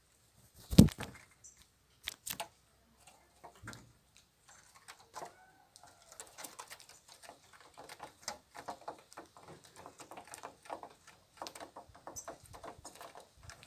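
Small birds, Brazilian tanagers and saffron finches, pecking at scattered feed, heard as a dense run of quick light taps and clicks with a few faint chirps. A single loud knock comes about a second in.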